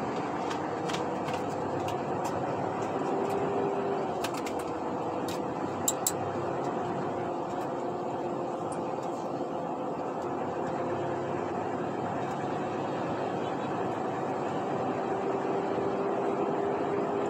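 Truck engine running and road noise while driving, the engine hum drifting slowly up and down in pitch. Two sharp clicks about six seconds in.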